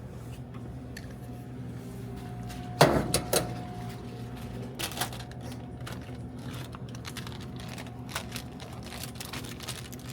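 Vending machine being restocked by hand: scattered light clicks and knocks of a product tray and snack packs being handled, with a louder clatter about three seconds in and another near five seconds, over a steady hum.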